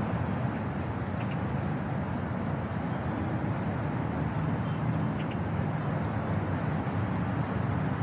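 Urban park ambience: a steady low rumble of traffic, with a few faint, brief bird chirps.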